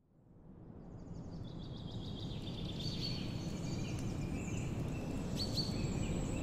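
Nature ambience fading in: birds chirping with short, high calls over a low, steady rumble.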